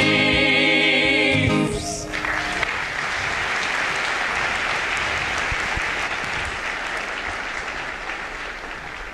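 Several voices holding a sung final chord with vibrato, cut off together about two seconds in; applause follows, fading gradually near the end.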